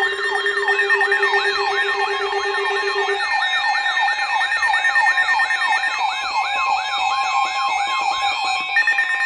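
Electronic alert siren in a broadcast emergency alert: a loud warble of repeated falling sweeps, about two and a half a second, over steady tones. Near the end it switches to a fast-pulsing high tone. It leads into a tornado warning.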